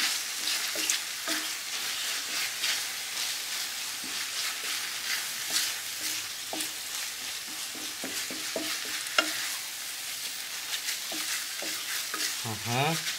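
Diced sausage, onion, tomato and bread crumb sizzling in a frying pan, with a wooden spatula stirring and scraping across the pan's bottom in irregular strokes.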